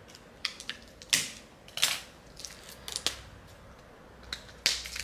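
Clear plastic wrapping on a pack of cards being picked open by hand, crinkling in a run of sharp, irregular crackles, the loudest about a second in, just before two seconds, around three seconds and near the end.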